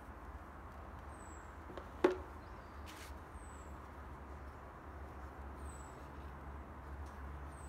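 One sharp knock about two seconds in over a faint steady hum, with a faint, very high, short falling chirp repeating about every two seconds.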